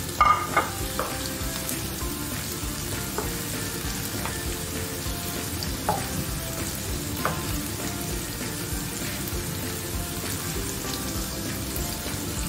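Chopped onion and red bell pepper sizzling steadily in hot oil in a nonstick frying pan. A wooden spatula stirs the pan, giving a quick cluster of sharp taps just after the start and a few single taps later.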